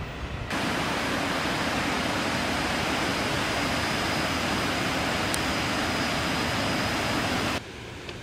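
Steady, even rushing noise with a faint high whine in it. It starts abruptly about half a second in and cuts off abruptly near the end.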